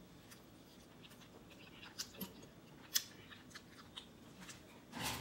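Faint chewing of a mouthful of ramen noodles, with scattered soft clicks, the sharpest about three seconds in.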